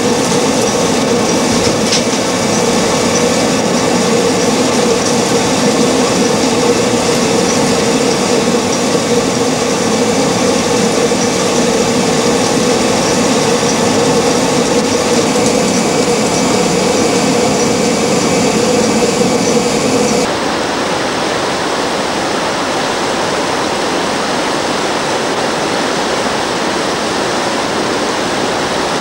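A 1700s water mill grinding maize: steady running rumble with a low hum and faint regular ticking. About two-thirds of the way through it cuts abruptly to the even rush of river water pouring over a weir.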